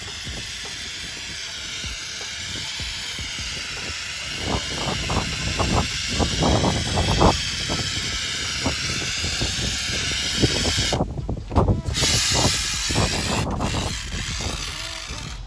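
Aerosol can of expanding spray foam hissing steadily as it sprays foam into a rust hole in a truck bed. The hiss breaks off for about a second near the end and again briefly just after, with irregular low thumps and crackles under it from about four seconds in.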